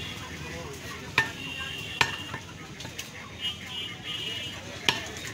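Heavy butcher's cleaver chopping beef on a wooden log chopping block: four sharp chops at irregular intervals of about a second, over a low background hum.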